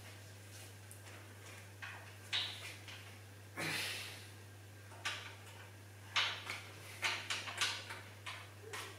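Cable being fed through the pulleys of a Smith/cable gym machine: intermittent scrapes, rattles and clicks of cable and metal parts being handled, more frequent in the second half, over a steady low hum.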